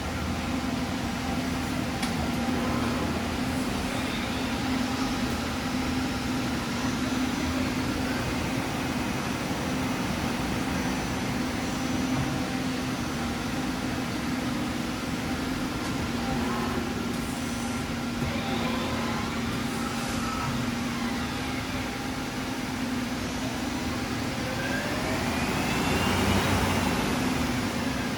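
Steady machine-shop hum of running machinery and fans, with a constant low drone. A whine rises and falls twice, the second time louder, near the end.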